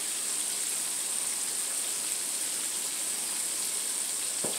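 Hot oil sizzling and bubbling steadily as breaded pig feet deep-fry in a wok.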